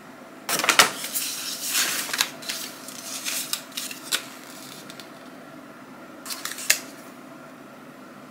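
Grocery packages, tubs of tuna salad among them, being handled and set down on a tabletop: rustling with sharp clicks and knocks. The handling is busiest from about half a second to four seconds in, with a shorter burst of clicks about six and a half seconds in.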